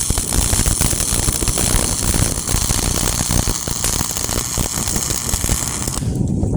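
Welding arc crackling and sizzling steadily, then cutting off abruptly about six seconds in, with a low rumble running on underneath.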